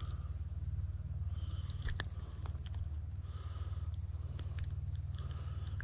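Steady insect chorus over a low rumble, with a single sharp click about two seconds in.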